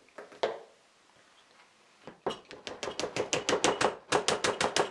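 Wooden mallet tapping a wooden dowel into a hole in the edge of a melamine-faced particle board panel: a fast, even run of knocks, about six or seven a second, starting about two seconds in, with a short break near four seconds. A couple of soft clicks near the start as pliers pull a half dowel out of its hole.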